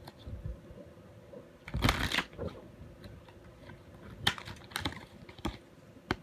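A deck of tarot cards being shuffled and handled by hand: a short, louder rush of shuffling about two seconds in, then a few separate sharp clicks of cards being tapped or snapped.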